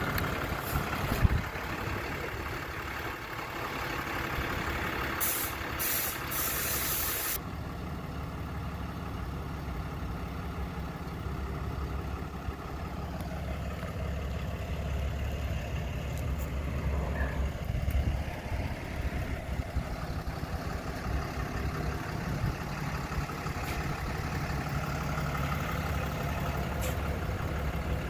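Ram flatbed tow truck's engine idling steadily, with a short hiss about five seconds in.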